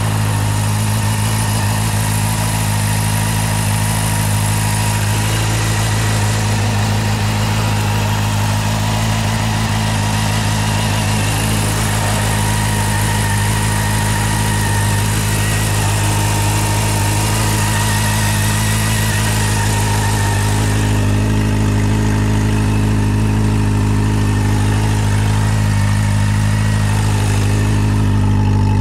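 Honda CB400SF VTEC Revo's 399 cc inline-four idling steadily through its stock exhaust.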